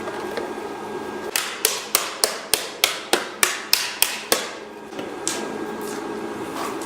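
Forging hammers striking a bronze gong blank in a quick, even rhythm: a run of about eleven sharp metallic blows, roughly three a second, then two lighter blows a little later.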